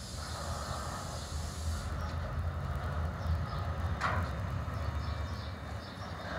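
Class 68 diesel locomotives hauling a slow freight train, a steady low engine rumble, with a hiss over the first two seconds and one short sharp squeak about four seconds in.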